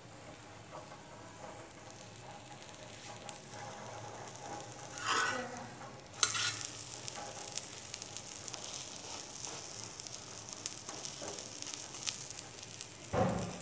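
Capsicum omelette frying in oil on a flat griddle, sizzling with a fine crackle that grows stronger after about six seconds. A metal spatula scrapes and turns it a few times.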